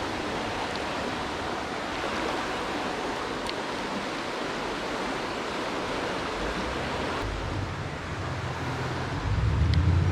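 Shallow creek water running steadily over riffles, a continuous rushing hiss. Near the end a low rumble comes in over it.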